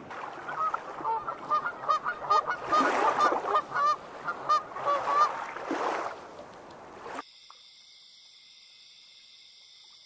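A flock of waterfowl honking in a rapid run of short nasal calls over a soft wash of water. About seven seconds in it cuts off abruptly, leaving only a faint, steady, high-pitched insect-like hum.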